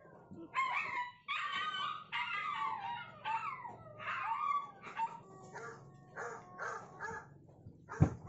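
Dogs in a video playing through a mobile phone's speaker: long calls that slide up and down, then a run of short yelps. A sharp thump near the end is the loudest sound.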